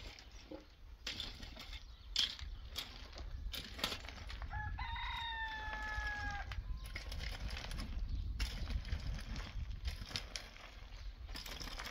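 A rooster crows once, about five seconds in, a single call of about two seconds that drops slightly at the end. Around it, repeated scraping and clinking strokes of a metal rake dragged through stony soil.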